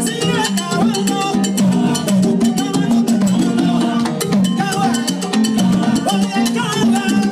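Live salsa band playing, with conga drums and other percussion over bass, guitar and keyboard.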